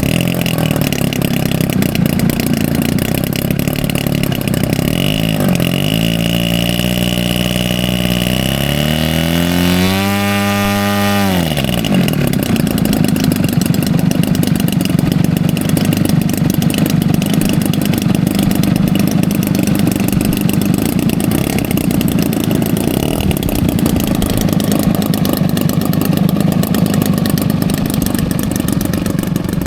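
Model airplane engine running close by, revving up with a rising pitch, holding high for about a second, then dropping back to a steady, rough run.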